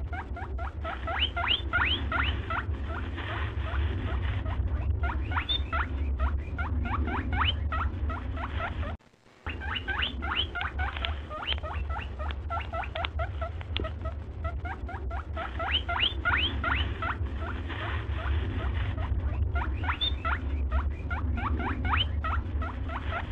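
Looped background soundtrack of rapid, squeaky chirps over a steady low hum. It cuts out for about half a second around the middle, then starts the same pattern again.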